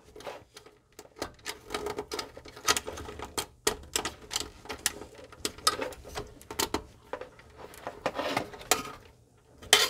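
Screwdriver and wires clicking and tapping against a metal electrical enclosure while terminal screws are worked, a run of irregular small clicks and light rattles.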